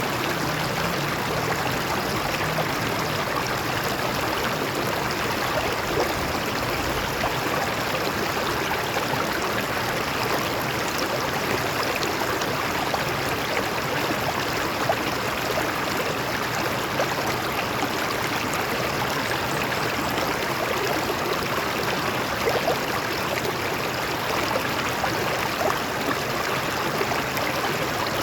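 Stream water flowing over rocks, a steady rushing with small splashes and gurgles.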